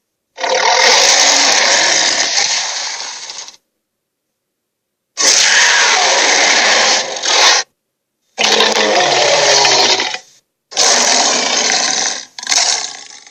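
Dragon roar sound effects: four loud, noisy roars of two to three seconds each, some tapering off at the end, with dead silence between them.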